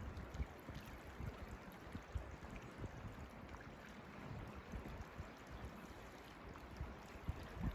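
Creek water running steadily, with irregular low thumps throughout.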